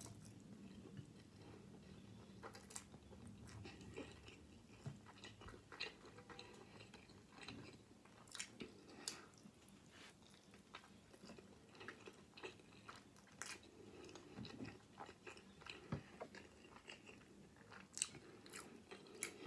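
A person biting into and chewing a soft flour-tortilla burrito filled with rice, chicken and black beans. The chewing is faint, with irregular small wet mouth clicks.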